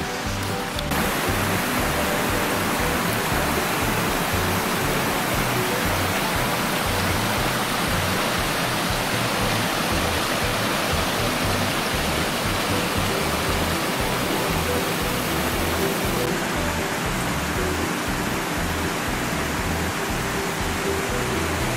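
Steady, even rushing noise with faint held tones underneath; it fills out slightly about a second in and then stays unchanged.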